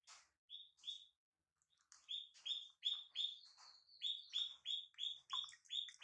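Baby macaque giving short, high-pitched chirping squeaks: a few faint ones at first, then after a short pause a rapid series of about three a second.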